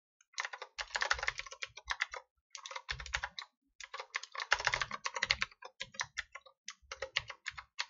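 Typing on a computer keyboard: quick runs of key clicks in four bursts, with short pauses between them.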